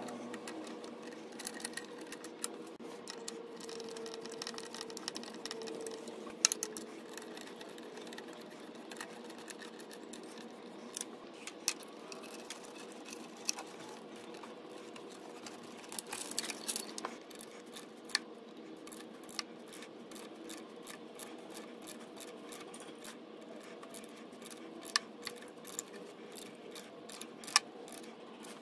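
Socket ratchet clicking in short runs as the thermostat housing bolts are snugged down, mixed with scattered sharper clicks and knocks of tools and parts, with a quicker run of clicks near the end. A faint steady hum sits underneath.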